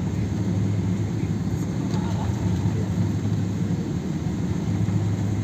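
Steady low drone of an airliner heard from inside the cabin, its engines and air system running.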